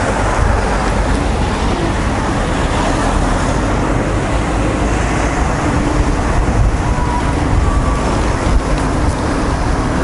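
Steady street noise with road traffic: an even rumble of passing vehicles and outdoor background noise, with no distinct events.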